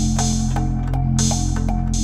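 Background music with a steady beat: held bass notes, evenly repeating ticks and cymbal-like swells.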